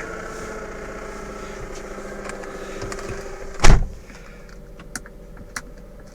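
Volkswagen Passat B5 running with a steady hum, which the owner puts down to the automatic gearbox. About three and a half seconds in comes a single loud thump, after which the hum is much quieter, with a few faint clicks.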